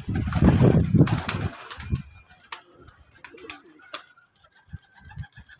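Domestic pigeons cooing, low rumbling coos in the first second and a half, then quieter with a few sharp taps.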